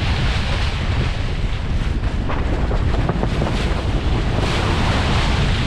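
Wind buffeting the microphone aboard a sailboat under way, a steady loud rush with heavy low rumble.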